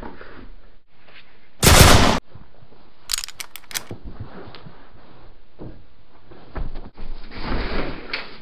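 Gunshot sound effects: one loud blast about two seconds in, then a quick run of about five sharp cracks a second later.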